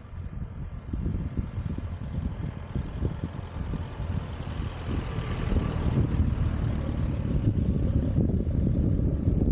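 Wind buffeting the microphone in an irregular, gusty rumble, with a hiss that swells and fades in the middle.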